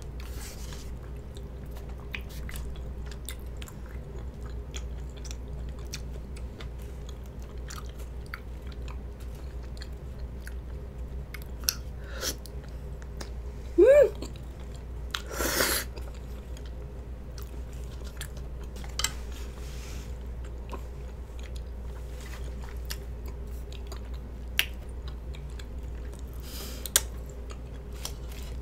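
Close-miked eating of spicy rice cake stew: steady chewing with small wet clicks and lip smacks, and a loud slurp of noodles about halfway through.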